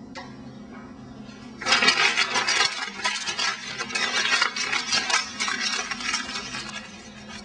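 A sheet of paper being crumpled into a ball by hand: dense crinkling and crackling that starts about two seconds in and goes on for several seconds, over a steady low hum.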